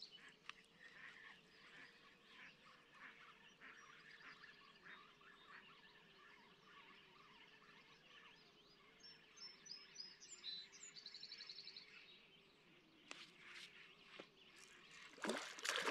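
Near silence at a lakeshore in the evening: faint songbirds calling, with one short rapid trill about ten seconds in, over a faint low steady hum. A few light clicks near the end.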